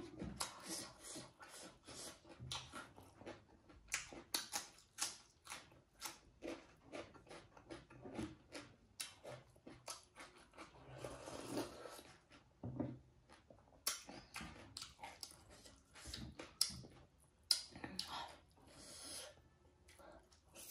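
Close-miked eating sounds: many short wet chewing clicks and lip smacks as rice and pork are eaten by hand. About eleven seconds in comes a longer slurping sound as dal is sipped from the bowl.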